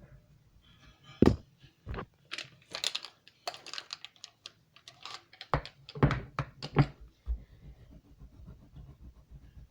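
Colouring tools being handled as a new colour is picked up: several sharp knocks and clicks, with a stretch of quicker scratchy clatter between them, from about a second in to about seven seconds in.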